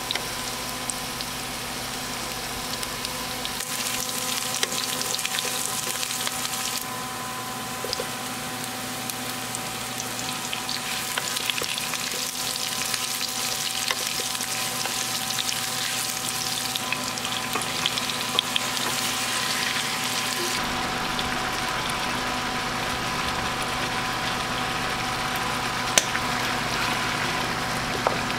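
Oil sizzling and crackling in a frying pan as vegetables and then pork ribs fry, with a wooden spatula stirring and scraping the food around the pan. A steady hum sits under the sizzle, and there is one sharp click near the end.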